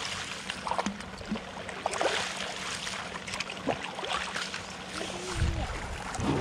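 Water splashing and sloshing as bowlfuls of pool water are scooped up and poured over a bathing Asian elephant's back, in irregular splashes with the biggest about two seconds in.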